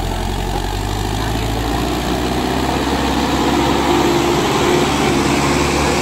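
Sonalika DI-750 III tractor's diesel engine running steadily under load as it hauls a loaded soil trolley, growing louder as it comes closer.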